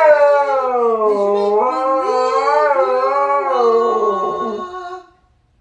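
A dog howling in one long drawn-out, wavering call that slides up and down in pitch, then stops about five seconds in.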